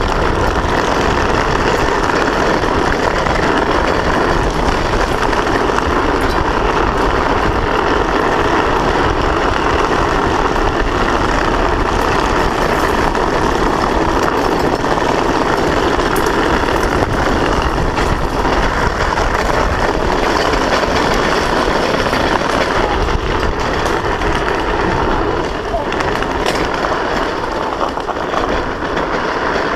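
Drift trike rolling fast downhill on asphalt: a steady, loud rush of tyre and hard plastic rear-wheel sleeve noise on the road surface, mixed with heavy wind buffeting on the helmet-mounted microphone.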